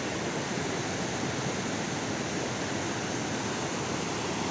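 Waterfall rushing: a steady, even roar of falling water that stays unchanged throughout.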